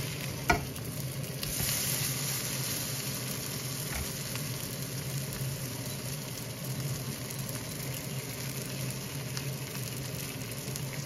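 Zucchini pancakes sizzling steadily in oil in a nonstick pan, with one short click of the spatula against the pan about half a second in. A steady low hum runs underneath.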